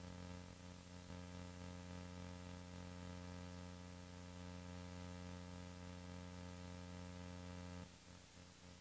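Faint steady electrical hum, a stack of even tones over a light hiss, with no crowd or game sounds. About eight seconds in the hum turns wavering and uneven.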